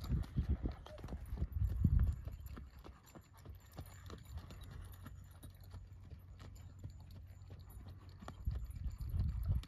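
An Arabian horse's hoofbeats on a packed dirt arena at a lope, a steady run of dull strikes. They are louder in the first two seconds and again near the end.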